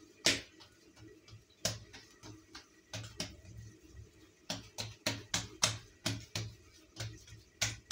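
Irregular sharp clicks and taps of hand work at a tiled kitchen counter as poppy-seed paste is spread over rolled-out dough; they come thickest in the second half.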